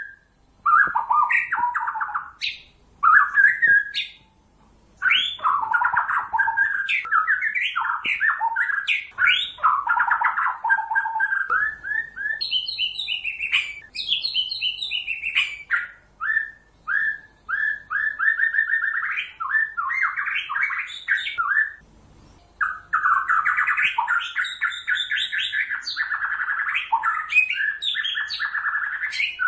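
White-rumped shama (murai batu) in full, vigorous ('gacor') song: long runs of rapid repeated notes and trills, broken by short pauses, with a higher-pitched passage about halfway through.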